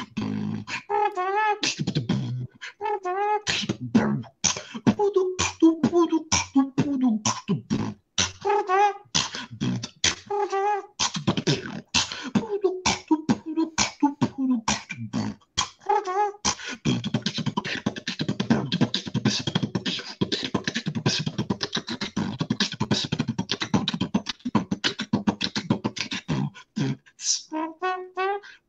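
Beatboxing routine: rapid mouth-made kick, snare and hi-hat sounds woven with short hummed melodic phrases. About halfway through it turns into a denser stretch of fast hits over a held low bass tone, with a brief break near the end.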